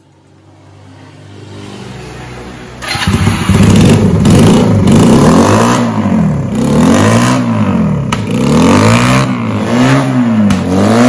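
Honda Benly 125T's air-cooled 125 cc parallel-twin four-stroke engine breathing through a pair of secondhand aftermarket silencers. It runs quietly at first, then from about three seconds in it is revved hard over and over, the pitch rising and falling about once a second.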